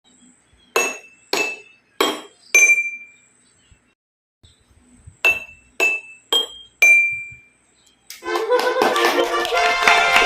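Two runs of four sharp, ringing clinks, each about half a second apart, the last of each run ringing longest. About eight seconds in, a dense wash of music takes over.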